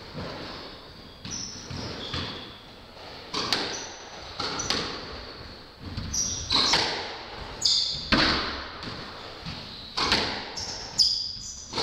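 Squash rally: the rubber ball struck by racquets and smacking off the court walls, sharp echoing hits about once a second, with short high squeaks of players' shoes on the hardwood floor between them.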